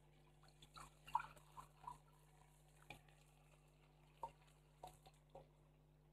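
Water poured from a bowl into a pan of rice and chicken, heard only as a few faint, scattered splashes and drips over a steady low hum.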